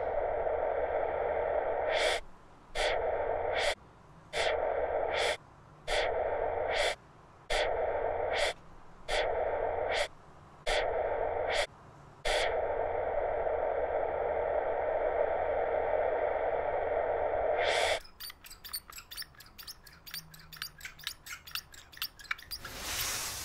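A steady buzzing drone that cuts out and back in about eight times, with a click at each break. Near the end it gives way to a run of fast, irregular clicks, then a short whoosh.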